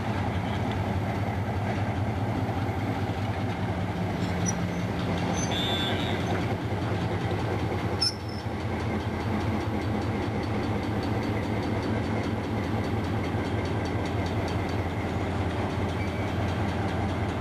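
EMD diesel locomotives, a Great Northern NW5 among them, with their 567 engines running steadily as they pull a train slowly past. There is a single sharp click about halfway through.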